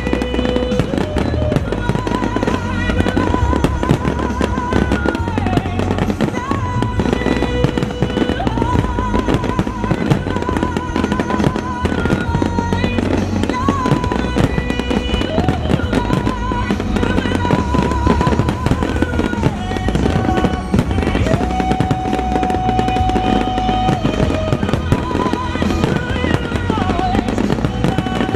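A dense barrage of aerial fireworks shells bursting continuously in overlapping booms and crackles, with a steady low rumble. A sung ballad with long, wavering held notes plays over the top.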